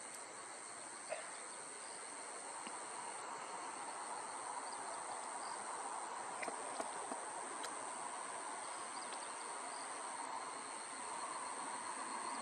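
Insects such as crickets keeping up a steady, unbroken high-pitched trill over a steady background hiss, with a single sharp click about a second in.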